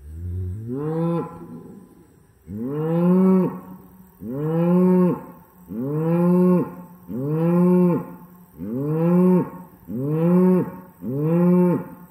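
A cow mooing insistently: eight loud calls, one every second and a half or so. Each call rises and then drops off abruptly. The rancher takes it as a cow calling a young one over to the good grass.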